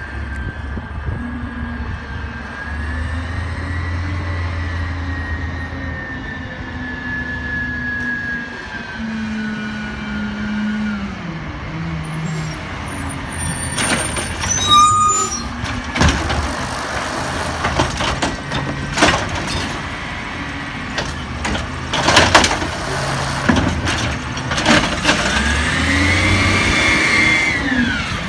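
Peterbilt 320 natural-gas automated side-loader garbage truck pulling up and stopping, its engine pitch rising and falling. About halfway through its air brakes hiss and squeal. After that the automated arm clanks and knocks, and near the end the engine revs up and down to drive the arm's hydraulics as it reaches for the cart.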